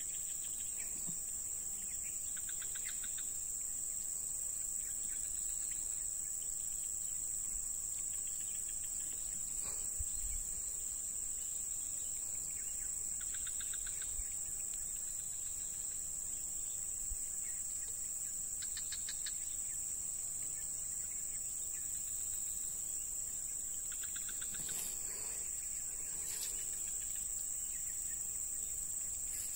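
A steady high-pitched insect drone, with short pulsing trills rising out of it a few times.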